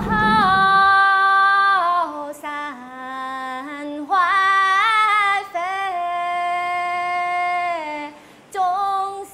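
A woman singing a slow melody, holding long notes and sliding from one pitch to the next, with little or no accompaniment.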